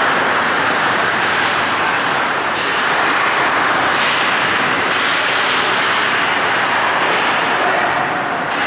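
Steady, loud rushing din of an indoor ice hockey rink, with a few faint sharp clicks of play on the ice.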